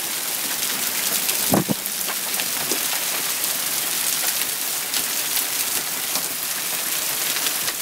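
Heavy downpour of rain and hail, with water spilling from overflowing roof gutters: a steady hiss scattered with sharp ticks, and one dull thump about a second and a half in.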